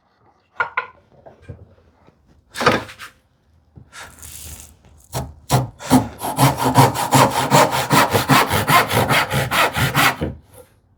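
Fine-tooth hand saw cutting a tenon shoulder in a thin piece of wood. A few light knocks and a short scrape come first, then quick, even saw strokes at about five a second for some five seconds, stopping shortly before the end.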